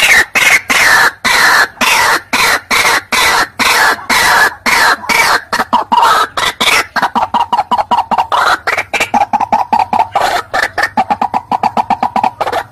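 White-breasted waterhen calling: a loud, rapid series of harsh croaking notes, the early ones sliding down in pitch, then from about seven seconds in a faster run of shorter, even notes.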